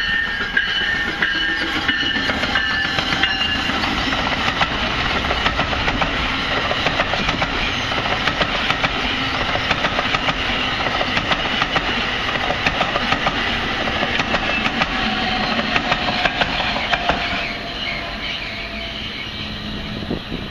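NJ Transit commuter train of double-deck multilevel coaches passing at speed, its wheels clicking rapidly over the rail joints, with a steady high whine in the first few seconds; the sound eases off near the end as the train clears.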